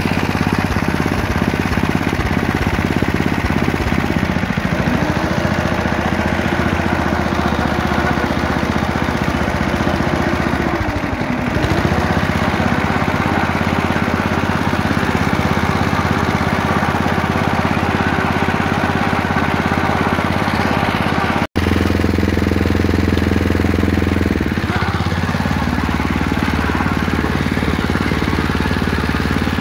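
The 5 hp Tecumseh engine of a 1963 Atco cylinder lawn mower running steadily while mowing. Its pitch dips briefly and recovers three times, and the sound cuts out for an instant about two-thirds through.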